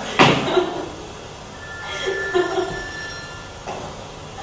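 A sharp knock about a quarter of a second in, then a bell-like ringing of steady high notes lasting about two seconds.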